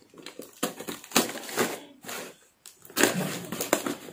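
Box cutter slicing and scraping through plastic packing tape on a small cardboard box, with the cardboard rustling under the hands. Short scratchy strokes, a brief pause about two and a half seconds in, then louder continuous scraping from about three seconds.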